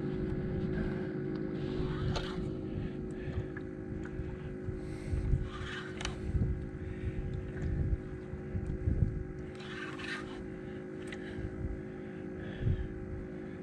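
Spinning reel being cranked to bring in a hooked shark, over wind rumbling on the microphone and a steady low hum. A few light clicks and knocks from handling the rod and reel.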